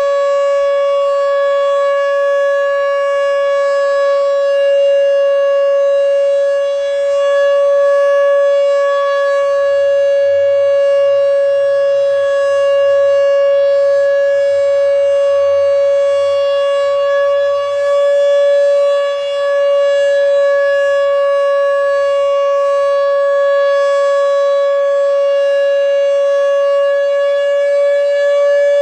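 Fedelcode dual-rotor Mach 5 outdoor warning siren sounding its full-alert steady tone, one held pitch that neither rises nor falls. The siren is running a bit sluggish.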